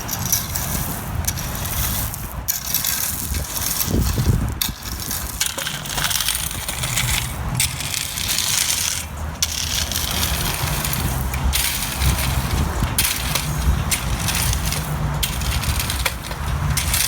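A rake and lute scraping and dragging through granular A crushed gravel, spreading and levelling the base in repeated strokes with short pauses between them.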